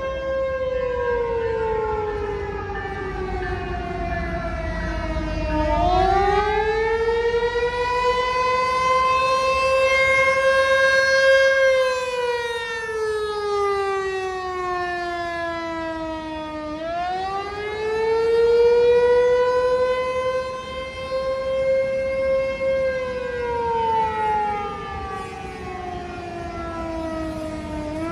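ASC T-128 rotating outdoor warning siren sounding a wail, the attack signal. Its pitch slides slowly down and back up in cycles of about eleven seconds, holding briefly at the top of each.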